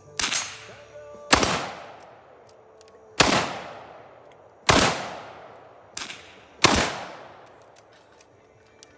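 Six gunshots in slow, uneven succession, about a second or two apart, with a weaker shot near the middle. Each one has a long echoing tail that fades away.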